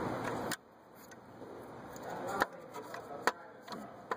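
Hands handling parts and the camera: a rushing noise that cuts off suddenly about half a second in, then a few sharp clicks and taps.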